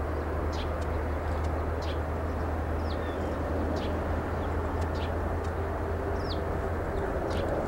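Distant steady rumble of an Airbus A380-841's Rolls-Royce Trent 970 jet engines on the runway, with short high bird chirps about once a second over it.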